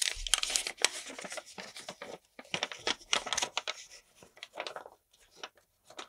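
A folded paper instruction manual being handled, with irregular rustling and crinkling of paper.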